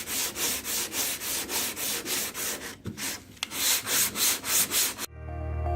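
Sandpaper on a hand sanding block rasping back and forth over cured body filler (Bondo) on a car door, in quick even strokes about four a second with a brief pause partway through. Background music starts near the end.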